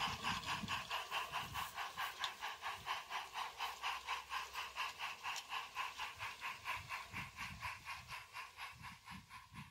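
Live-steam O gauge model of a GWR Hall class 4-6-0 locomotive chuffing in quick, even beats, about six a second, fading gradually as it runs away along the track.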